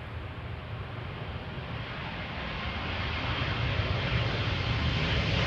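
Boeing 747-400F's four turbofan engines on final approach: a steady jet rumble and hiss that grows steadily louder as the freighter nears, with a faint high whine coming in during the second half.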